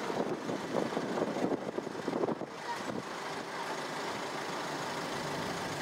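Steady vehicle engine noise, with gusts of wind on the microphone in the first couple of seconds.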